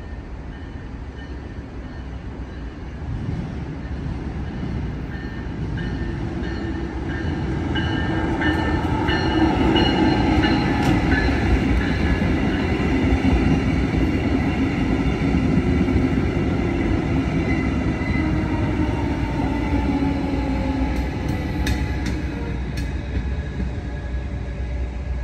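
Brightline passenger train, a Siemens Charger diesel-electric locomotive with its coaches, passing at a grade crossing. The sound builds over several seconds, is loudest as the train goes by about halfway through, then fades away.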